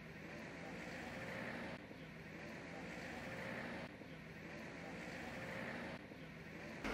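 Faint motorcycle engine running as the bike approaches along a dirt road. Its hum swells slightly and drops back about every two seconds.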